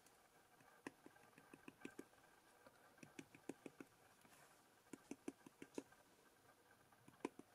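Faint, light taps in short clusters: a wood-mounted rubber stamp being dabbed repeatedly onto a handheld ink pad to ink it.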